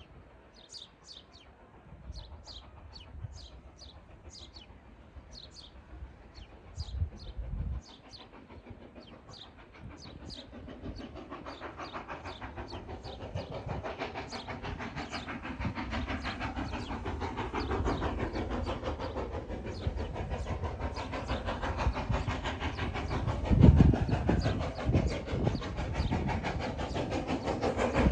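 Birds chirping, then an approaching steam-hauled train, the two-cylinder LNER B1 4-6-0 61306 Mayflower working hard up a bank, growing steadily louder from about ten seconds in, with a sudden loud low rush near the end.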